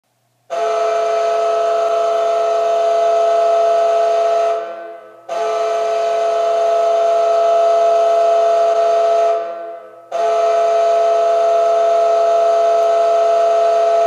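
New Jersey Devils arena goal horn sounding three long blasts, each about four and a half seconds, a steady chord of several tones with a short gap between blasts. The horn signals a goal scored.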